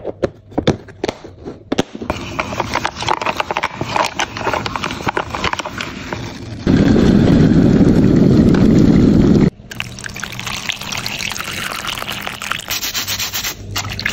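A string of workshop sounds. First a few sharp clicks as a plastic tub lid is handled, then scratchy rubbing. A steaming kettle gives a loud, steady rush for about three seconds that cuts off abruptly, then scrubbing with a brush in soapy water.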